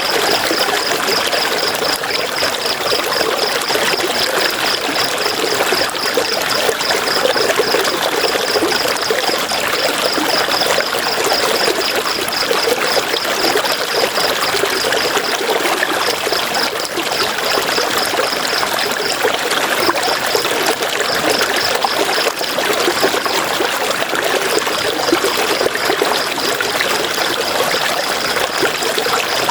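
River water running, a steady, dense rushing and splashing. A high, fast pulsing chirp comes and goes over it.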